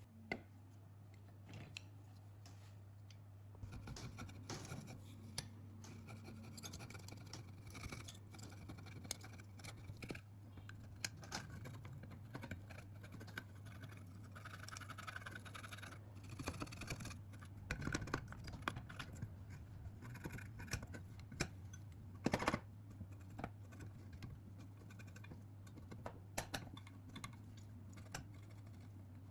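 Light scratching, scraping and scattered clicks of hand work on small parts, over a steady low hum.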